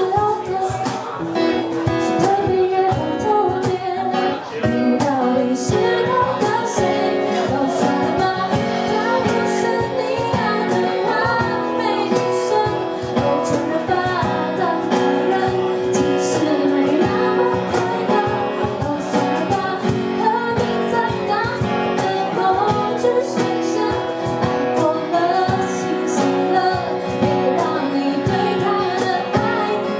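Pop band music: a female voice singing over guitar with a steady drum beat.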